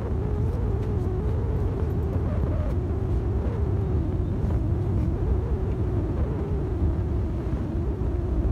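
Steady low rumble with a droning hum that wavers slightly in pitch throughout.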